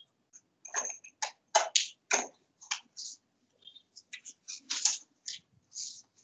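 An irregular series of about twenty sharp clicks and taps.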